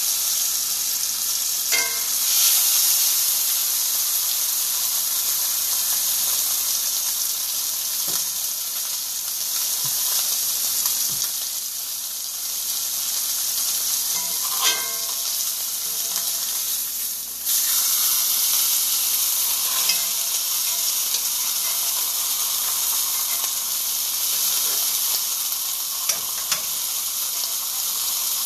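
Beef roast searing in a hot cast-iron skillet: a steady sizzle of fat and juices, broken by a few sharp clicks as metal tongs and a knife touch the pan.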